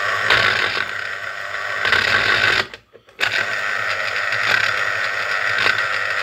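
Yelmo EX 1303 electric citrus juicer's small 25-watt motor running steadily as an orange half is pressed onto its reamer. It cuts out for about half a second a little under three seconds in, then starts again.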